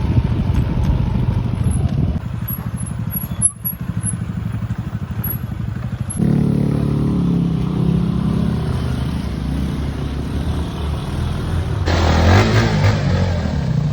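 Motorcycle engine running under way, with its note shifting to a steadier, higher pitch about six seconds in.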